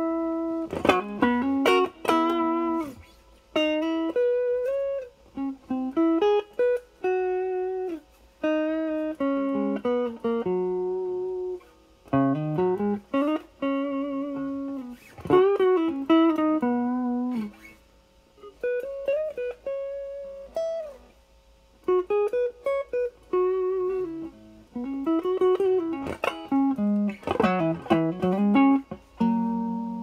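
Stratocaster played through a 1986 ProCo RAT2 distortion pedal (Motorola LM308N chip), its distortion knob at about 9 o'clock, into a Marshall Valvestate amp's clean channel. The result is lightly overdriven single-note lead phrases with string bends, broken by short pauses.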